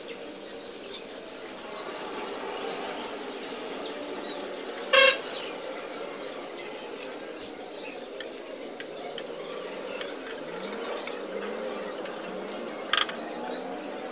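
Sweet potato wedges deep-frying in hot oil: a steady sizzle with fine crackling. Twice, about five seconds in and again near the end, a short loud horn-like honk cuts through.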